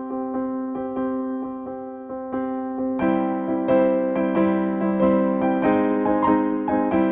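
Background music: an electric piano playing a steady run of repeated notes, growing louder and fuller about three seconds in.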